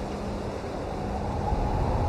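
Steady rain as continuous white-noise ambience: an even wash with a heavy low rumble. A faint steady hum in it ends about one and a half seconds in.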